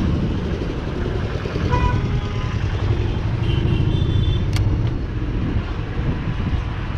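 Street traffic and a dense low rumble heard from a bicycle rolling along a busy town road, with a few brief tones around two and four seconds in and a sharp click about four and a half seconds in.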